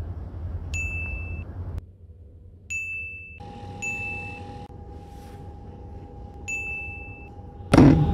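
A bright, high ding sounds four times, each ringing for under a second, over low background noise. A sudden loud noise comes near the end.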